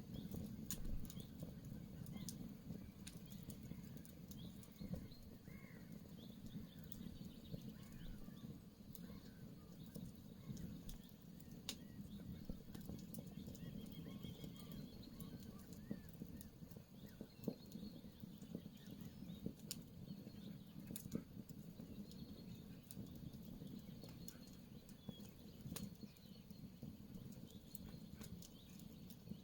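Campfire crackling, with scattered sharp pops over a low steady rush of the burning wood. Faint birdsong chirps now and then in the background.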